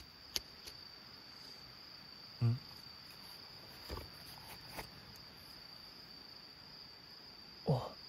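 Crickets trilling steadily at a high pitch, with a few soft clicks and knocks in between and a short bit of voice near the end.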